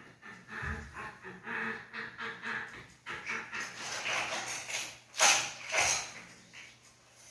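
Plastic toy building blocks clattering as a toddler rummages through a pile of them, with two louder clatters a little past the middle. A voice-like whine or hum comes and goes in the first half.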